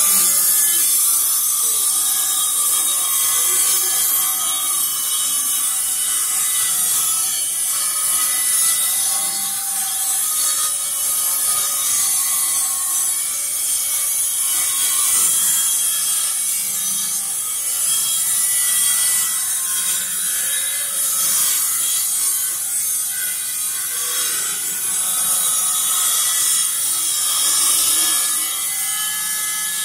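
A steady high hiss throughout, with faint scraping and small clicks of hand work on a metal electrical outlet box.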